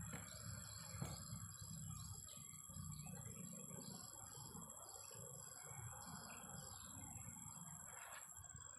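Insects trilling in steady high tones, one of which stops shortly before the end, with a run of short chirps repeated about twice a second and a low rumble underneath.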